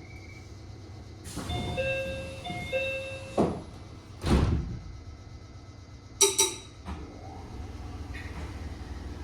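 Door chime of a renewed Meitetsu 3700 series train, two-tone phrases like those of the JR Central 313 series, sounded twice. The sliding doors then close with two heavy thuds, and a short sharp ring follows about six seconds in, over a low steady rumble.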